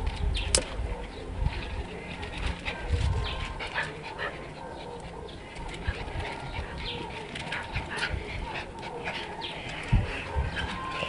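Two dogs play-fighting, a puppy and a small dog, making dog sounds amid scuffles and knocks, with caged birds calling in the background. A sharp click comes about half a second in and a thump near the end.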